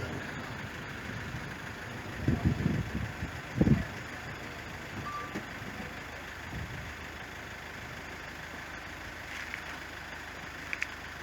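Low rumbles of thunder from a nearby thunderstorm: a cluster about two seconds in and a shorter, stronger rumble near four seconds, over a steady outdoor hiss.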